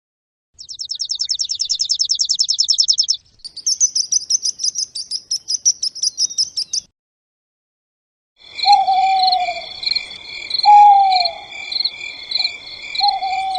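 Bird calls, one recording after another. First come two rapid, high-pitched trills of about three seconds each. After a short gap, three falling calls sound about a second and a half apart over a steady high-pitched chirring background.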